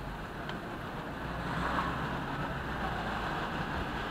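Steady traffic and road noise heard from inside a moving car, swelling slightly about a second in.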